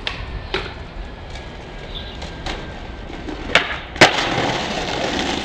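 Skateboard wheels clicking over pavement joints, then a sharp pop about three and a half seconds in and a brief lull while the board is in the air. About four seconds in comes a loud slap as the board lands a jump down a stair set, followed by the steady rumble of urethane wheels rolling away on concrete.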